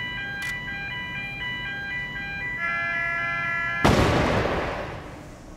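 Tense music of held, chiming notes, then about four seconds in a sudden loud bang from a capacitor-bank spark discharge (man-made lightning) that dies away over about a second.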